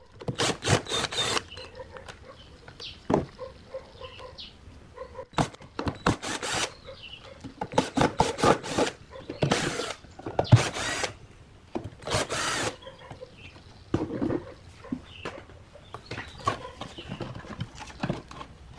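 Tool work on a speaker in repeated short bursts of about a second each, with knocks and clicks between them.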